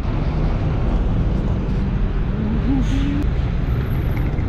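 City street noise with passing road traffic, a steady dense rumble. A short pitched tone that rises and falls is heard a little past halfway.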